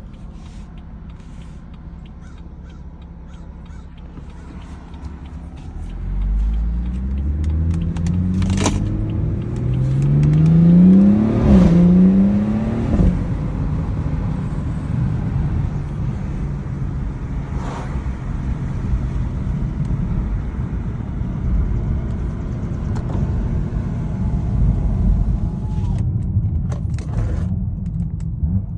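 BMW 440i xDrive under way with a whine that climbs in pitch as the car accelerates from about six seconds in, dips briefly and climbs again, then settles into steady engine and road rumble. This whining noise appeared after a transmission service.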